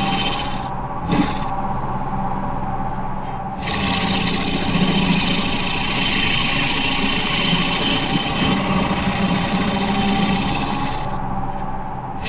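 Wood lathe motor running steadily while a turning tool cuts the spinning wood, giving a scraping, shaving hiss. The cutting noise stops for a few seconds about a second in, and again near the end, leaving only the motor hum.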